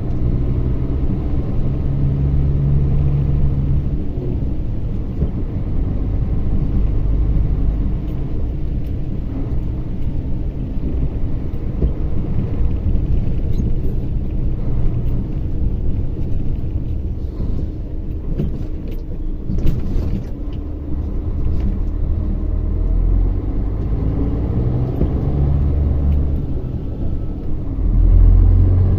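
Mercedes-Benz Axor 2644 truck's diesel engine running while driving, a steady low rumble whose engine note shifts a few times and swells louder near the end.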